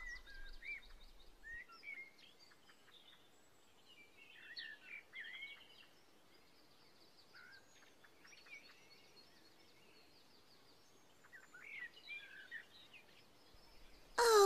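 Faint birdsong: scattered chirps, whistled glides and short quick trills, with a quieter lull in the middle.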